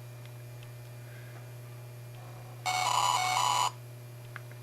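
A computer's electronic beep, about a second long, with a slight change in pitch midway, from the disk test reporting read errors on the failing netbook hard drive. A steady low hum runs underneath.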